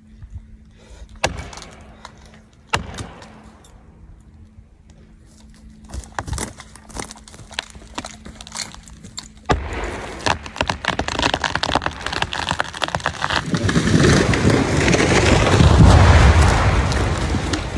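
A tree cracking as it gives way: a few single sharp cracks, then faster and faster splitting, then a loud rising rush and crash as the tree comes down, loudest near the end.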